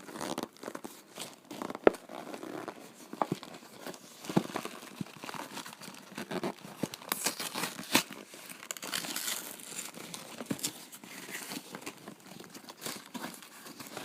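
A cardboard mail box being opened by hand: packaging rustling and crinkling, with tearing and many sharp clicks and snaps throughout.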